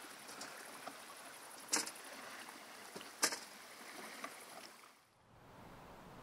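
Oar strokes of a small rowing dinghy: two sharp knocks about a second and a half apart over a faint hiss of water, fading out about five seconds in.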